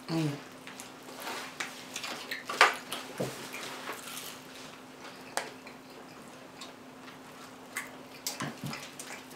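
Close-up chewing and crunching of someone eating crispy food, scattered crisp crunches and clicks with the sharpest about two and a half seconds in, over a faint steady hum.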